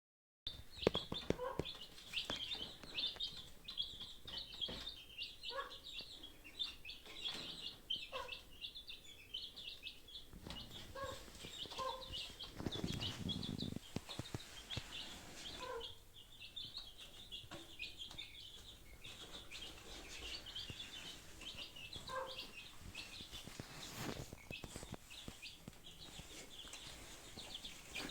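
Chickens clucking in short scattered calls over a continuous chatter of high chirps.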